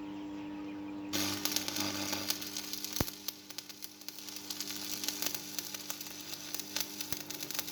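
Electric arc welding: the arc strikes about a second in and crackles and sizzles for about six seconds, then cuts off abruptly near the end. A steady hum runs underneath throughout.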